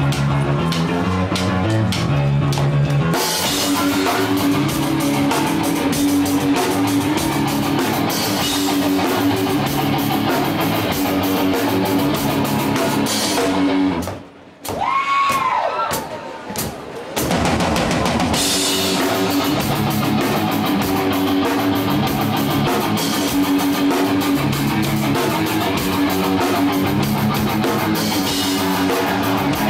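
Hardcore punk band playing live at full volume, with distorted electric guitar and a pounding drum kit. A little past halfway the band stops for about two seconds, leaving a single tone that bends up and down, then the whole band comes back in.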